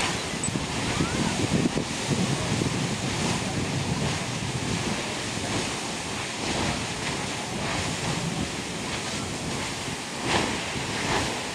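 Grand Geyser erupting: a steady rushing and splashing of its water column jetting up and falling back, with a few brief louder surges near the end.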